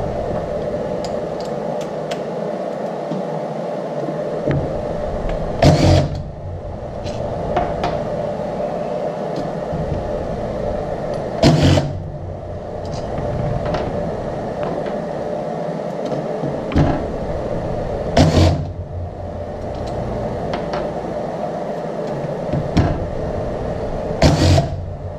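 Cordless driver spinning out the retaining-plate bolts on a cam phaser in four short bursts, spread a few seconds apart, over a steady background hum.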